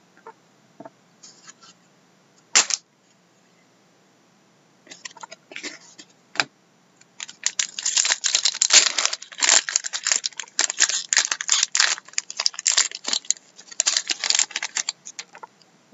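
Foil wrapper of a hockey trading-card pack being torn open and crinkled by hand: a dense crackling from about seven seconds in until just before the end. Before that come a few scattered handling clicks and one sharp click a little under three seconds in.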